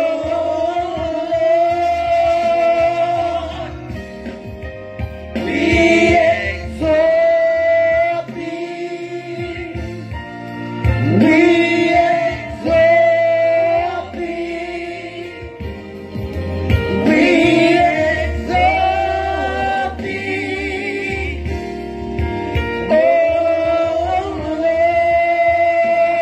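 Gospel praise team singing: a woman leads into a handheld microphone with other voices joining in, in phrases of long held notes.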